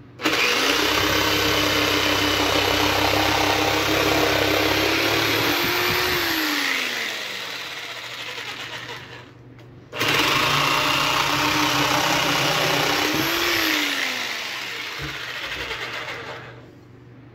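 Bauer orbital jigsaw on its first orbital setting cutting a curved scroll cut in oak, in two runs. It starts, runs at a steady pitch for about six seconds, then spins down with falling pitch. It starts again about ten seconds in, runs about three and a half seconds, and spins down again.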